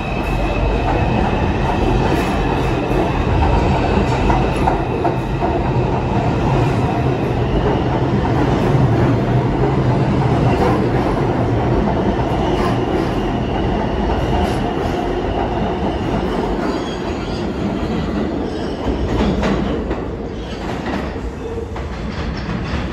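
New York City subway train running on the track: a steady loud rumble and clatter of wheels on rail, with a high wheel squeal at the start and again about halfway through.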